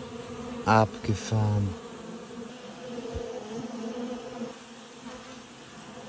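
A honeybee colony buzzing in an open hive: a steady hum of many wingbeats.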